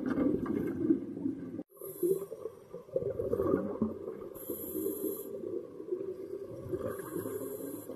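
Scuba diver breathing through a regulator underwater: a low, muffled bubbling rumble with three hissing breaths about two and a half seconds apart.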